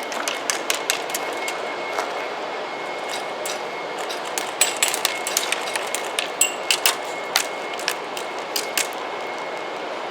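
Airsoft guns firing and BBs striking hard surfaces: scattered sharp clicks and cracks, some in quick clusters, over a steady background hiss.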